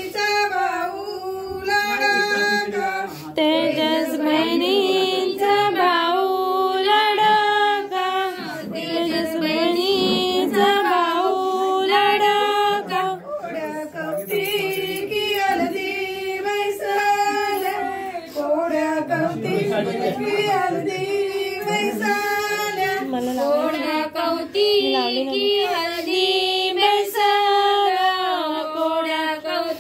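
Women's voices singing a haldi song, a continuous melody with long held notes.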